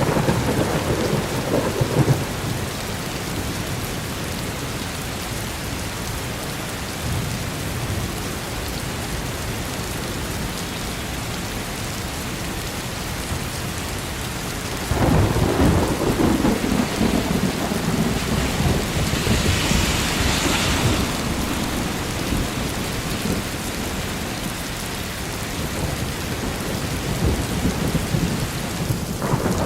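Steady rain with rolling thunder: a rumble near the start, and a longer, louder one swelling up about halfway through.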